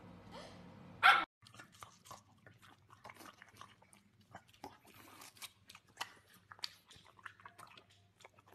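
A white fluffy puppy gives one loud, short bark about a second in. Then a French bulldog bites and chews a slice of watermelon: a quick, irregular run of crunching clicks.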